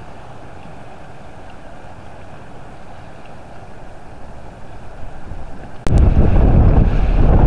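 Soft, steady wind and water noise at a lake or sea shore. About six seconds in there is a click, and then strong gusty wind buffets the microphone loudly over waves breaking on the shore.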